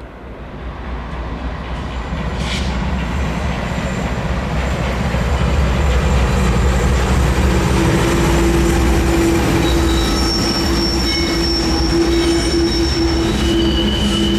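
Loaded Norfolk Southern coal train approaching and passing, its deep rumble growing louder over the first six seconds. From about eight seconds in, wheels squeal against the rails in high steady tones that come and go.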